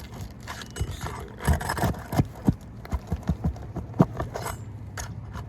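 Irregular knocks, clicks and scrapes of a tool working under asphalt roof shingles to pry out roofing nails along the nailing strip, the sharpest knock about four seconds in.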